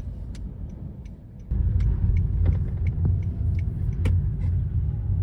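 Low, steady rumble of a car on the move, road and engine noise, which gets suddenly louder about one and a half seconds in, with faint scattered ticks over it.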